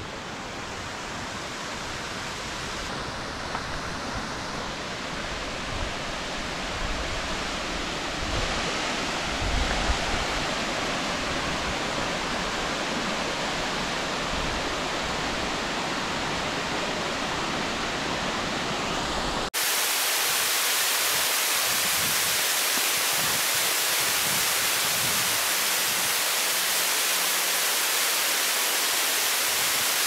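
Steady rush of waterfall water, growing gradually louder with some low rumble; about two-thirds of the way through it cuts abruptly to a louder, hissier rush.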